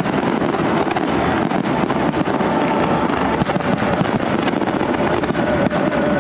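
Fireworks display going off in a dense, continuous barrage, many shell bursts and crackling reports overlapping with no pause.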